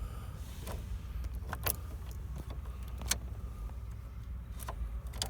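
Scattered small metallic clicks and key jingles as a new ignition lock cylinder, key in it, is pushed and worked into a 2004 Chevy Suburban's steering column housing, over a steady low rumble.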